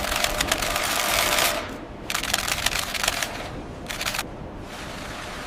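Rapid mechanical clatter in three bursts: one of nearly two seconds, one of about a second, and a short one about four seconds in.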